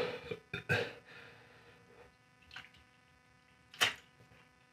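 A man drinking from a plastic bottle between short, sharp puffs of breath, his mouth burning from super-hot peanuts. The loudest is a brief hiss of breath near the end.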